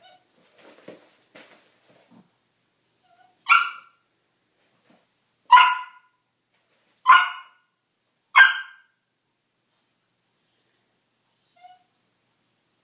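A dog play-barking, four sharp barks roughly a second and a half apart, followed by a few faint high squeaks.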